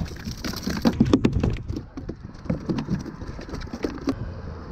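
Small striped bass flopping and slapping on the plastic deck of a Hobie kayak: a run of irregular knocks and taps, thickest about a second in.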